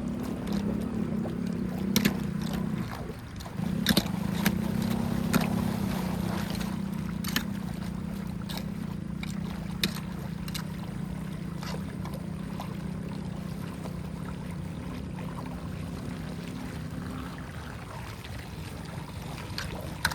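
Water rushing steadily, with scattered sharp clicks and knocks, most of them in the first ten seconds.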